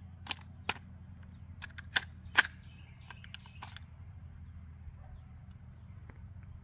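A series of short, sharp clicks and clacks, about eight in the first four seconds, from an AR-15 with a .22 conversion kit being handled, its action worked by hand.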